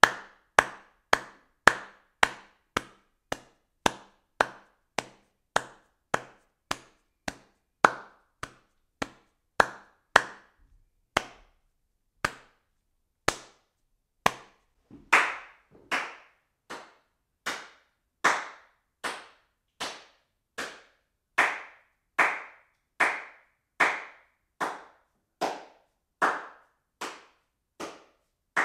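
Single hand claps, one at a time and evenly spaced: close to two a second at first, slowing near the middle, then about one a second with a fuller, slightly ringing sound.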